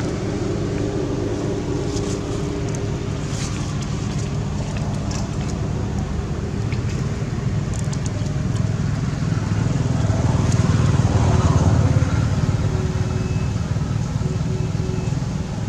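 Steady low rumble of a motor vehicle engine running, swelling louder about ten to twelve seconds in and then easing off.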